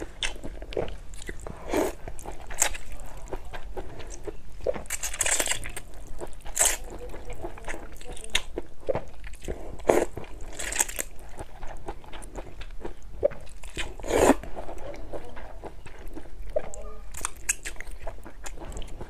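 A person slurping long strands of thin noodles from a bowl of soup and chewing them, with a slurp or mouth sound every second or two.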